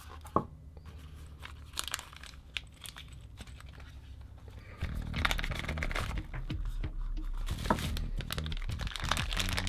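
Clear plastic packaging crinkling and rustling as a small brushless drone motor sealed in its bag is lifted from its cardboard box and handled. Scattered light clicks and rustles at first, then louder, continuous crinkling from about five seconds in.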